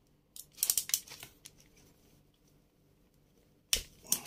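Small metal clicks and scrapes from a nut driver and pliers working a 3D printer hotend's nozzle loose from the heater block: a cluster of clicks about half a second to a second in, then a sharp click near the end.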